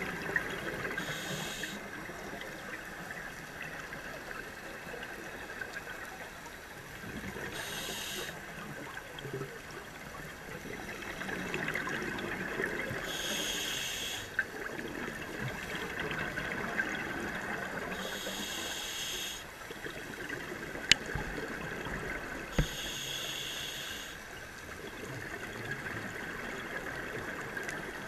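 Scuba regulator breathing heard underwater: a hissing, bubbly burst about every five seconds over a steady faint hum. Two sharp clicks come a little past the middle.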